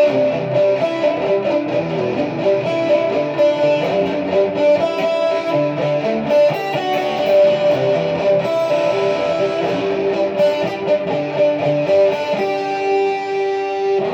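Jackson electric guitar with DiMarzio Dreamcatcher bridge and Rainmaker neck pickups, both selected, played through a distorted amp channel with the guitar's volume at half. Continuous notes and chords, with one note held near the end.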